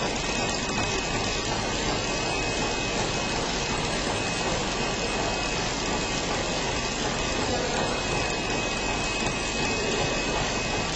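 DTH-320 multilayer laminating machine running steadily: an even mechanical noise from its motor and turning rollers, with a thin steady high tone in it.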